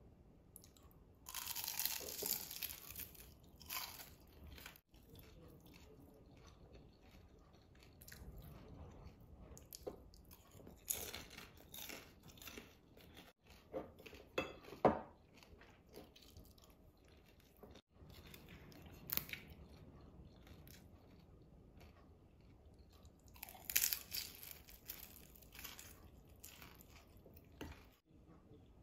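Crisp deep-fried Vietnamese spring rolls (chả giò) with beer-dipped rice-paper wrappers being bitten and chewed, crunching in scattered bouts, with a few light clicks of chopsticks and a spoon against bowls.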